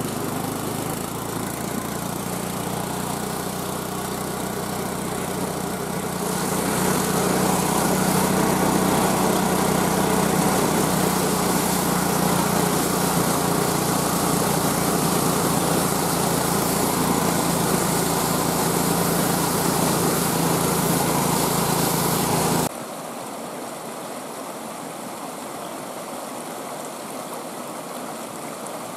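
Small gas engine of a homemade motorized dog sled running steadily under way on a snowy road, getting louder and brighter about six seconds in. About 23 seconds in it cuts off suddenly, and the steady rush of a creek takes over.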